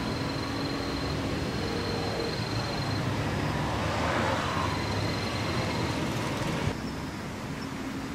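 Road traffic noise, steady, with one vehicle passing that swells and fades about four seconds in; near the end the background drops suddenly to a quieter hum.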